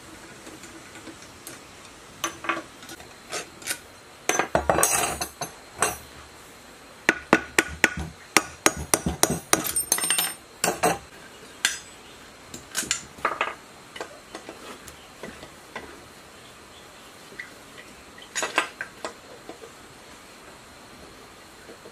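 Metal tools and loose engine parts clinking and clattering on a workbench as a small gasoline generator engine is taken apart. The sharp clinks come in irregular clusters, busiest about a quarter and about halfway through, with quieter gaps between.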